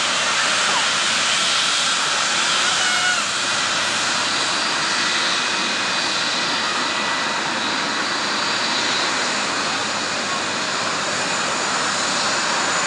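Twin jet engines of a Saudi Arabian Airlines Boeing 777 at taxi power: a steady rushing roar with a thin high whine as the airliner taxis past.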